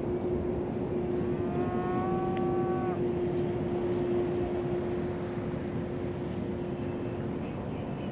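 Steady rumble of an idling vehicle engine, with one steady hum held most of the way that fades out near the end. About a second in, a higher drawn-out tone rises, then holds for under two seconds.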